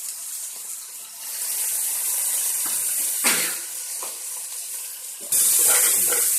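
Raw chicken pieces sizzling in a hot pan of oil and masala, a steady high hiss. There is a brief scrape or knock about three seconds in, and the sizzle suddenly gets louder about five seconds in.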